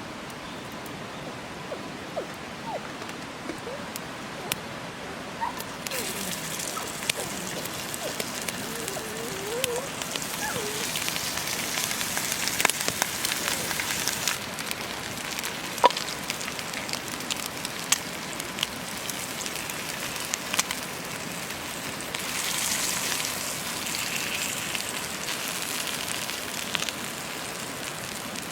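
Campfire crackling and popping with many sharp snaps; the crackling sets in about six seconds in. A few faint bird calls are heard before it.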